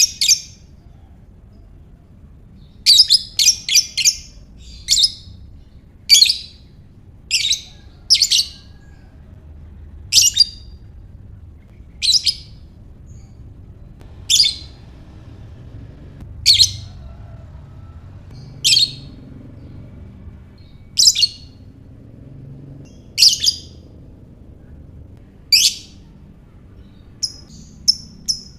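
Lovebird giving sharp, shrill calls: a quick run of several about three seconds in, then single calls roughly every two seconds, and a faster series of short chirps near the end.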